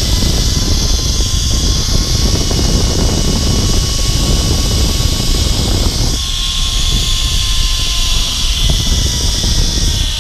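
Zip line trolley pulleys running along the steel cable with a faint whine that slowly drops in pitch, under heavy wind rush on the microphone; the sound shifts about six seconds in.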